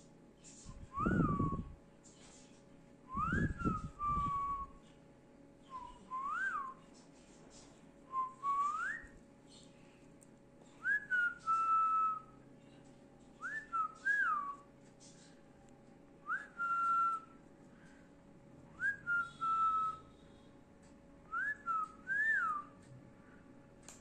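A series of short whistled notes, each a quick slide up and back down, about one every two and a half seconds, about ten in all. The first two come with a breathy rumble.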